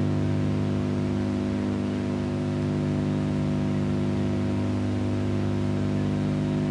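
Steady electrical mains hum with tape hiss on an old archive video recording: a low buzz with evenly spaced overtones that does not change at all.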